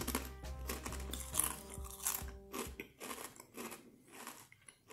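Someone biting into and chewing Lay's Crunch Tators kettle-style potato chips: a run of crisp crunches that thin out toward the end. Background music plays under the first half, then stops.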